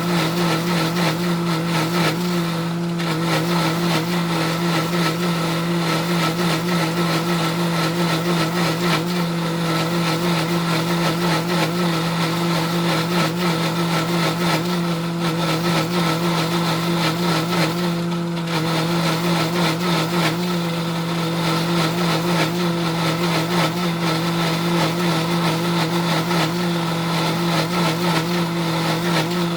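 Breville Bluicer blender motor running steadily on speed 3, churning thick tomato-based barbecue sauce, a constant hum with brief slight dips in level.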